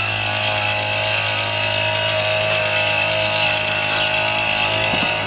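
A motor running: a loud, steady mechanical hum with a constant pitch.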